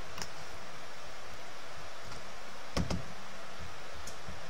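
Computer mouse clicking over a steady hiss of microphone noise: one click just after the start, a quick double-click just under three seconds in, and a faint click near the end.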